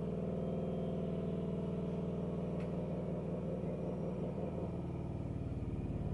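A steady, low engine-like drone with a fast, even pulse.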